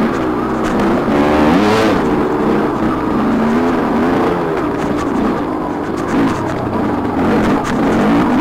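TM 300 two-stroke dirt bike engine running on and off the throttle, its pitch rising and falling again and again as the rider accelerates and backs off, over a steady rushing noise.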